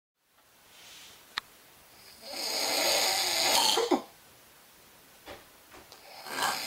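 A person snoring: one long, loud, rasping snore breath runs from about two to four seconds in and ends with a short falling snort. After a pause, a second snore breath starts building near the end.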